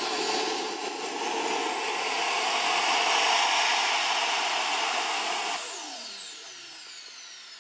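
Small gas-turbine engine of a radio-controlled L-39 Albatros scale model jet running on the ground with a high whine that rises in pitch, then spooling down about six seconds in, the whine falling away as the turbine shuts off.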